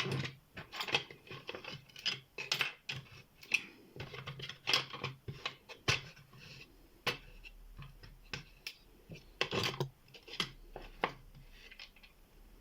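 Small metal tools and padlock parts clicking, tapping and scraping against each other and the bench in quick, irregular clicks.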